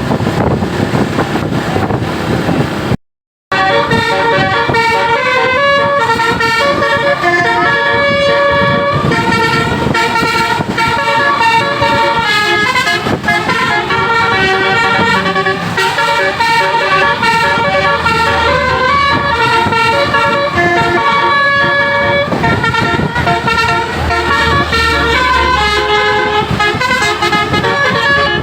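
A Basuri multi-trumpet "telolet" bus horn plays a melody: several held notes sound together and step from pitch to pitch. The horn comes in after a few seconds of road and engine noise and a brief dropout to silence.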